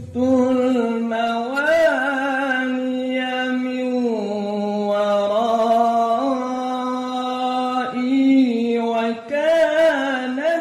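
A male qari chanting the Quran in maqam Bayyati, drawing one melismatic phrase out over long, mostly level held notes. The notes waver in ornamental turns about two seconds in and again near the end, and the pitch dips lower for a stretch in the middle.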